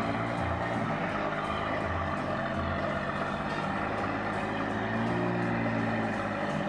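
GMC CCKW 353 six-wheel-drive truck's straight-six petrol engine running under light load as the truck drives slowly forward. The engine note rises a little about five seconds in.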